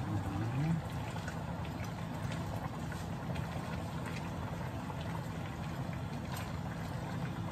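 Chicken and potatoes sizzling in a hot wok, stirred with a spatula that clicks and scrapes against the pan a few times.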